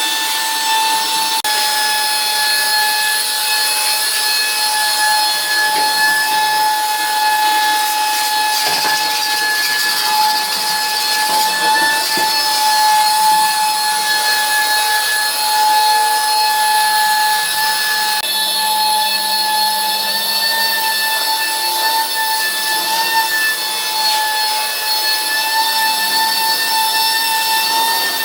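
An electric power tool running continuously, its motor giving off a steady high-pitched whine that holds one pitch throughout.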